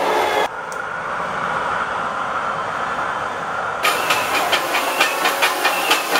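Metro light rail train passing a grade crossing, a steady running noise. About two-thirds of the way in, a crossing warning bell starts ringing about three times a second.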